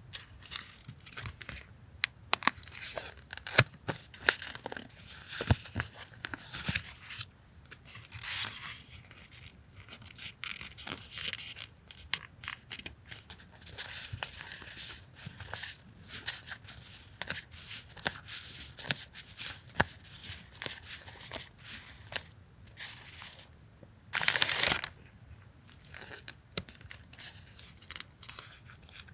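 Paper and plastic stationery packaging being handled: an irregular run of crinkling, rustling and light taps and clicks, with one longer, louder tearing or crinkling burst about 24 seconds in.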